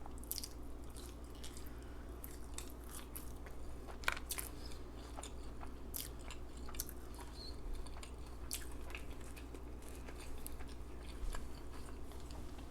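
Close-up mouth sounds of chewing a Quarter Pounder hamburger: scattered wet smacks and clicks of lips and tongue, over a faint steady hum.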